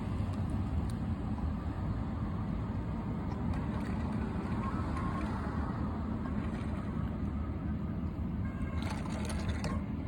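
Motor vehicle running steadily, a continuous low rumble of engine and road noise, with a few faint clicks about nine seconds in.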